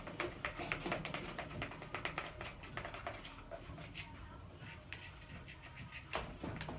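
Stick stirring a sticky glue-and-shaving-cream slime in a container: irregular soft clicks and taps, quick at first and sparser after about three seconds.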